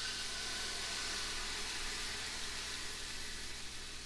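Beaten egg mixture sizzling as it is poured onto the hot non-stick plates of an electric waffle maker: a steady hiss that slowly eases.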